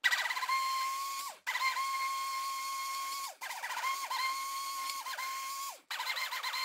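Handheld stick blender running in a pot of liquid soap mixture, a steady high whine that is switched off and straight back on three times, its pitch sliding down each time it stops.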